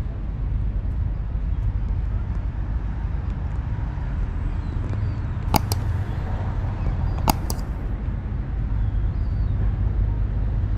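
Outdoor street ambience: a steady low rumble of traffic, with two sharp double clicks, one about five and a half seconds in and one about seven seconds in.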